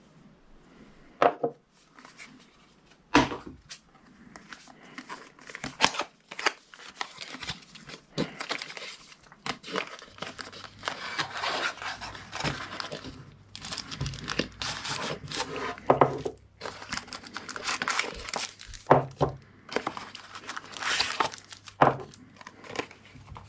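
Cardboard boxes and packaging rustling and crinkling as they are opened and unpacked by hand, with sharp knocks of items being set down on a wooden desk, a few of them loud.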